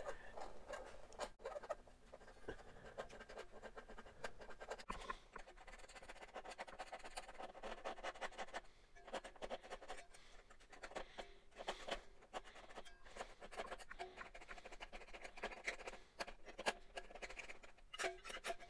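A pocketknife blade and a small metal file scraping dried battery-leak corrosion off the coiled spring contacts of a plastic battery compartment: quick, uneven scraping strokes mixed with small clicks.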